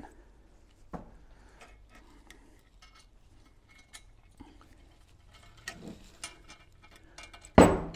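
Small metal clicks and taps of bolts and washers being handled and fitted into an intake manifold's fuel-rail bracket, with a louder knock near the end.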